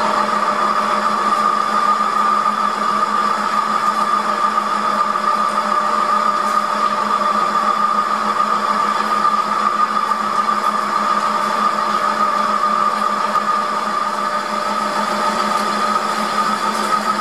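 Metal lathe running under power feed, a boring bar cutting the inside of the bore of a spinning metal plate, with a steady high whine and a low hum.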